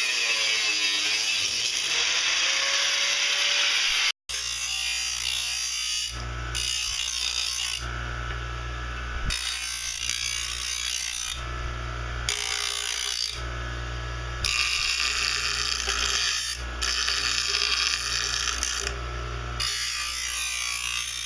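Bench grinder running, its wheel grinding the edge of a stainless steel plate in repeated passes: a steady low motor hum with a high grinding hiss that comes and goes as the steel is pressed on and lifted off. At the start, a long stainless strip is ground on a grinding wheel with a steady high hiss, which breaks off about four seconds in.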